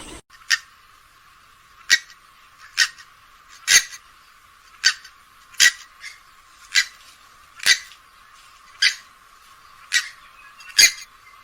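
Grey-headed swamphen giving a string of short, high calls, about one a second, eleven in all.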